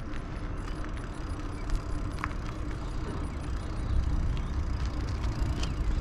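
Wind buffeting the microphone with road noise from a bicycle in motion: a fluttering low rumble, swelling a little about four seconds in, with a few faint ticks.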